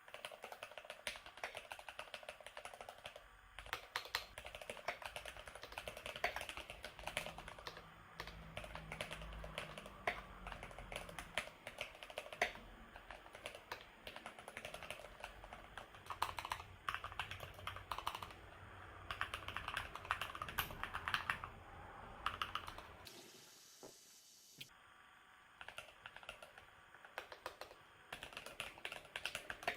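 Continuous typing on a Keychron mechanical keyboard: a rapid, irregular patter of key clicks, with a short pause about three quarters of the way through.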